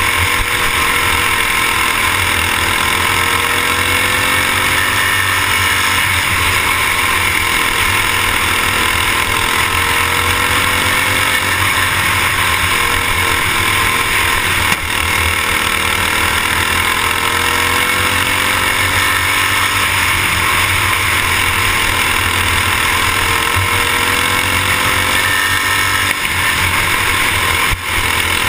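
Racing kart's single-cylinder engine heard from an onboard camera, running hard in a race: its pitch climbs on each straight and falls back into the turns, repeating every several seconds, over a constant rushing noise.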